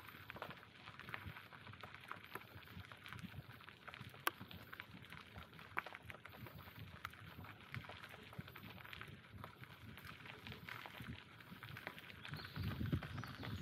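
Bicycle rolling along a forest path: tyres crunching, with many scattered small clicks and crackles. A low rumble grows near the end.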